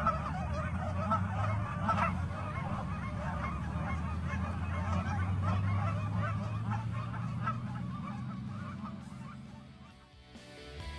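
A flock of Canada geese honking, many calls overlapping, over a low steady rumble; the calls fade out near the end.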